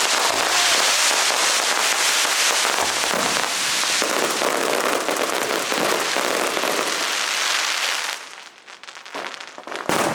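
Fireworks crackling in a dense, continuous barrage of rapid small bangs for about eight seconds. The barrage then dies away, and one sharp report follows near the end.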